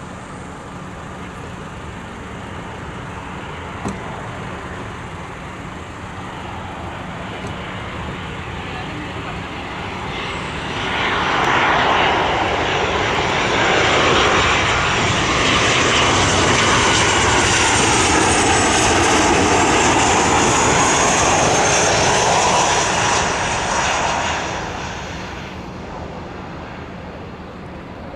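Jet airliner engines passing close by: the sound swells sharply about ten seconds in, stays loud for about a dozen seconds with a high whine and a sweeping, swirling tone, then fades away.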